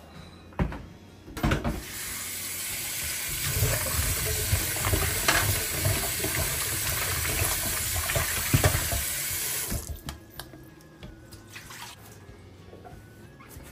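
Kitchen tap running water into a sink for about eight seconds, then shut off suddenly; a couple of short knocks come just before the water starts.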